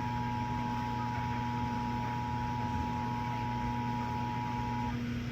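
The Emergency Alert System attention signal: a steady two-tone alert tone, held over a low steady hum, that cuts off sharply near the end.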